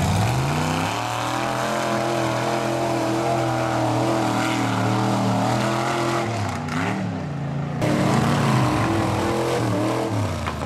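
Big mud-truck engine revving up and running hard under load, its pitch climbing at the start and then holding steady. Its pitch wavers about two-thirds through, and near the end the sound changes abruptly to another engine running.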